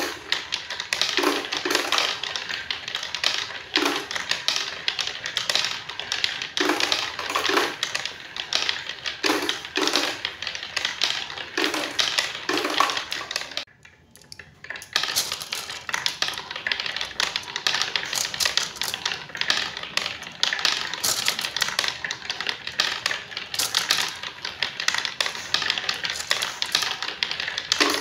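Marbles rolling and clattering down a wooden marble run, a rapid stream of clicks and knocks as they strike the walls of the zigzag track and drop from one sloping ramp to the next. The clatter breaks off for about a second around halfway through, then carries on.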